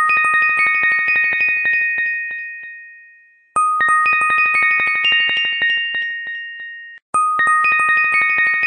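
Background music: a short, tinkling chime phrase of rapid high notes over held ringing tones. It fades and starts over about every three and a half seconds, once near the middle and again near the end.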